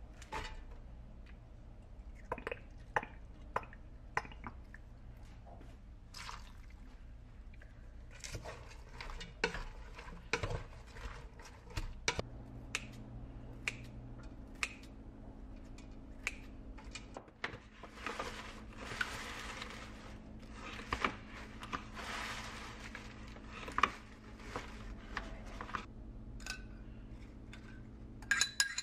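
Kitchen handling sounds around a stainless steel pot: scattered knocks and clicks as vegetables and glass noodles go in, with a denser stretch of scraping noise partway through. Near the end a spoon clinks against a ceramic bowl as the sauce is scraped out.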